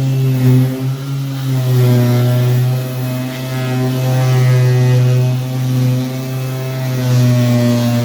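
A loud, steady low hum with a stack of overtones above it, wavering slightly in pitch.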